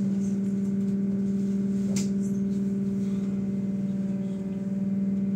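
Steady electrical hum inside a trolleybus, one constant low tone with a fainter higher one above it, and a single sharp click about two seconds in.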